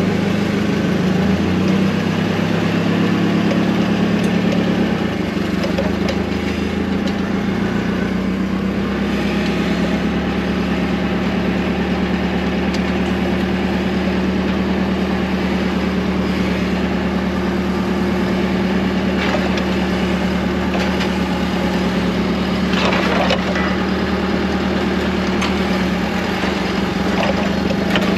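A heavy engine idling steadily, with a few brief knocks in the last third.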